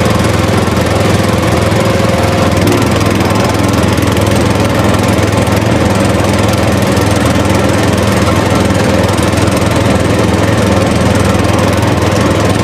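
Tractor engine running steadily at one even speed.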